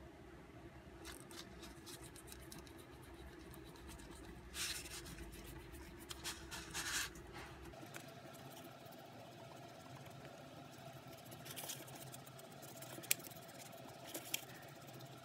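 Faint, irregular scratching of a gray oil pastel stick rubbed over creased, folded paper as the folds are coloured in, with a few louder strokes in the middle and a couple of sharp ticks near the end.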